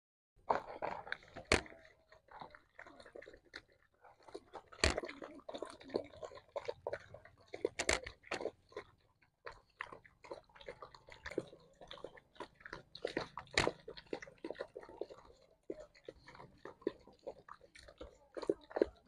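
Several puppies and a dog eating rice together out of one bowl: dense, irregular chewing and smacking, with a few louder sharp knocks.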